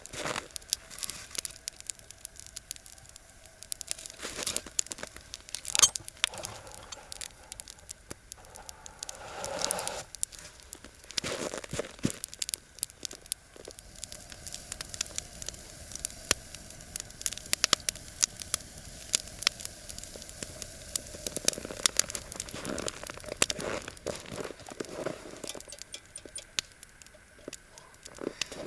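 Campfire crackling: burning wood giving irregular pops and snaps.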